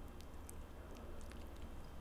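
Faint wet mouth sounds of biting into and chewing a xiaolongbao soup dumpling: scattered soft clicks and squishes, most of them in the first second and a half, over a steady low hum.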